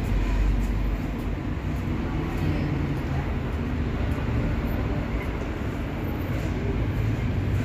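Steady low rumble of city street traffic, with faint voices of passers-by.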